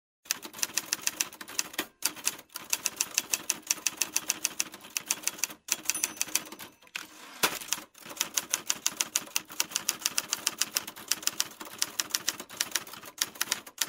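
Typewriter sound effect: rapid mechanical key clicks, about five a second, with a few short pauses, as text is typed onto the screen.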